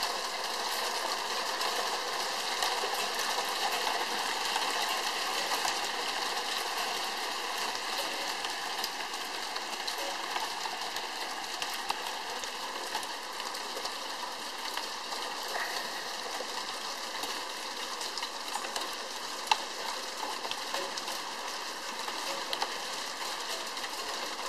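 Hail and heavy rain pelting clay roof tiles: a steady dense hiss made of many tiny ticks, with one sharper tick about nineteen and a half seconds in.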